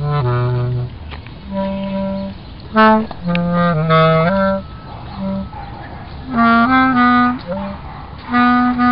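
Solo bass clarinet playing short phrases of held low notes that step up and down, with brief pauses between phrases. The old instrument is in need of repair.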